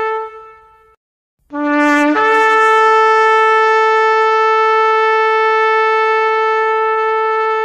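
Long held horn blasts: a note fades out in the first second, then after a short silence a new blast starts on a low note, jumps up to a higher one about half a second later, and holds steady for about five seconds.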